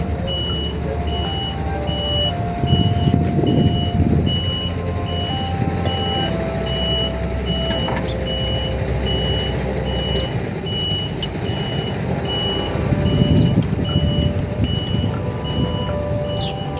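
A heavy diesel machine's engine running, with its reversing alarm beeping about twice a second throughout. The engine swells twice, a few seconds in and again near the end.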